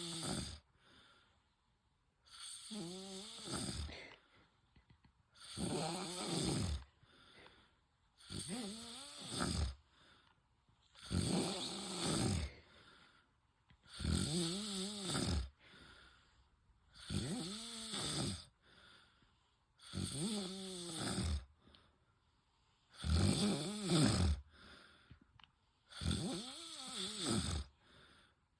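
A man snoring in his sleep: nine long snores about three seconds apart, each rising then falling in pitch, with quiet gaps between.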